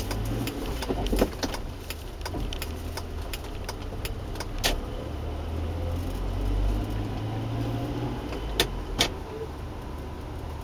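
Car engine and road noise heard from inside the cabin while driving, a steady low rumble with scattered light clicks and rattles, two sharper clicks near the end.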